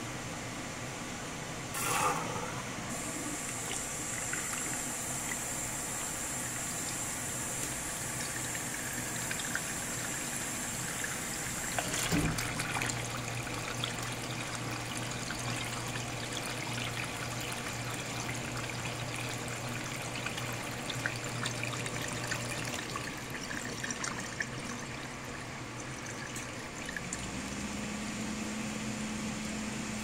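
Water rushing and swirling into the detergent dispenser of a Hitachi BD-NV110AL drum washing machine as it fills, the swirl dissolving powder detergent. A brief click comes about two seconds in and a sharp knock about twelve seconds in, after which a low machine hum runs for about ten seconds. A steadier, higher hum starts near the end.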